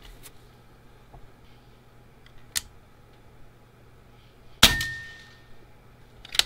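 Benjamin Kratos .22 PCP air rifle firing once, about four and a half seconds in: a sharp crack followed by a short metallic ring. A faint click comes a couple of seconds before the shot, and a quick run of clicks comes near the end.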